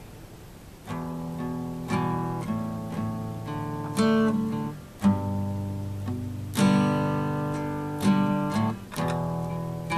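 Steel-string acoustic guitar strummed, with no singing. Chords strike about once a second and each rings out and fades. The strumming starts about a second in, as an earlier chord dies away.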